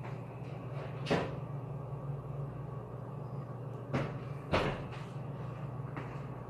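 Three short, sharp knocks, one about a second in and two close together around four seconds in, over a steady low hum.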